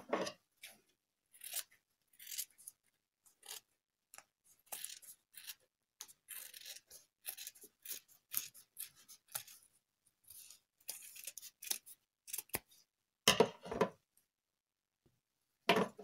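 Scissors snipping through pink felt glued to a cardboard heart, trimming the excess: a run of short, irregular cuts with the rustle of the felt being turned. Two louder knocks come near the end.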